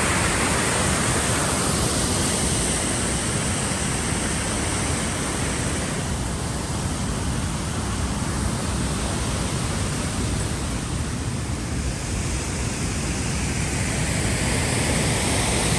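Waterfall's rushing water: a steady noise that eases a little in the middle and builds again near the end.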